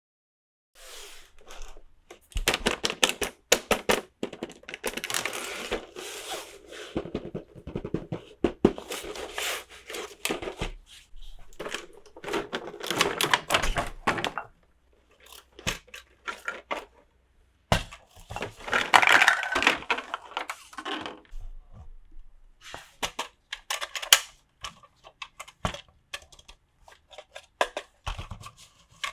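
Toy packaging and small plastic pieces handled up close: irregular clicks, taps and thunks with stretches of crinkling and tearing, as of a box and wrappers being opened.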